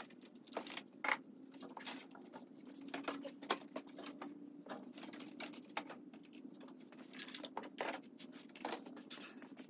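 Irregular knocks, taps and clatter of large model-airplane parts being handled, with wing panels and a fuselage lifted, shifted and set down on a workbench. A low steady hum runs underneath.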